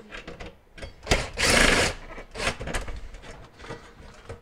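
Clicks and handling noise of hands working parts free inside a stove's control console, with one loud rasping burst lasting just under a second about a second in.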